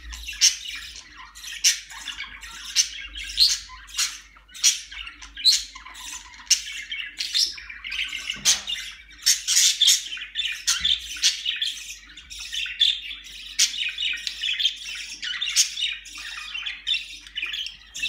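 Budgerigars chattering and chirping, with many short, sharp calls overlapping without a break.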